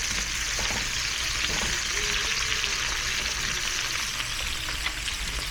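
Pork, shrimp and beef stir-fry sizzling steadily in a pan while being stirred, with a few light scrapes and ticks.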